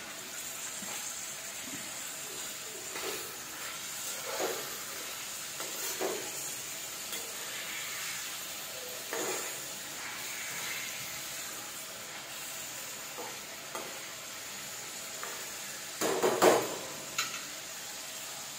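Chicken pieces sizzling in hot oil in a karahi, a steady hiss, while a spoon stirs and scrapes against the pan now and then, most loudly about sixteen seconds in.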